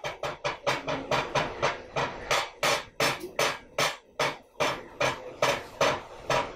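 Fast rhythmic percussion accompanying a Pava Kathakali glove-puppet performance: sharp ringing strikes, about four to five a second, kept up steadily.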